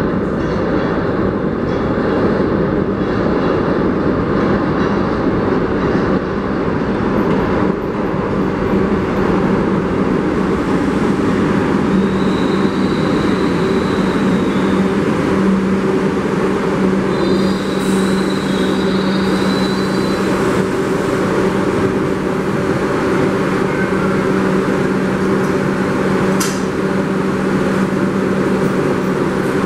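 New York City subway train on the IRT Broadway line pulling into the station and braking to a stop, with a continuous loud rumble of wheels on rail. Faint, high brake squeals come twice midway, a steady hum sets in, and there is a sharp click near the end as the doors open.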